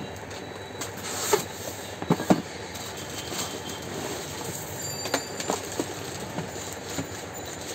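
Cardboard carton and plastic packaging being handled in an unboxing: scattered rustles and sharp crackles, the loudest a little over a second in and just after two seconds in, over a steady background noise.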